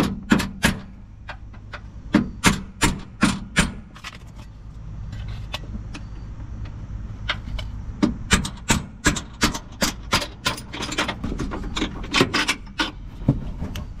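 Hammer blows on a steel extension rod, driving a front cab-mount bolt up out of a 2022 Toyota Tacoma's frame. Sharp strikes come in runs: a handful at first, a lull of a few seconds in the middle, then a long run of quicker strikes, about three a second.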